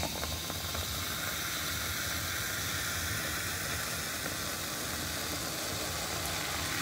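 Strawberries & Cream Dr Pepper poured from a can into a glass, fizzing with a steady hiss as a foamy head rises.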